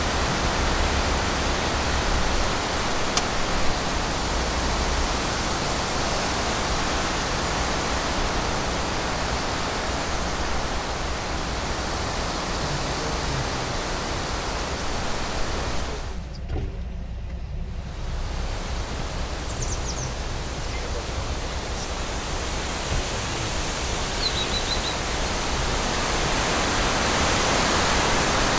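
Steady rushing noise with a low rumble underneath, its higher part dropping out for a couple of seconds about sixteen seconds in.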